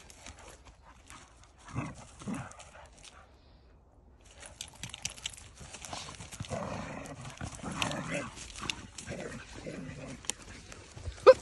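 Dogs play-fighting: low growls and scuffling over leaf litter and grass, busier and louder in the second half.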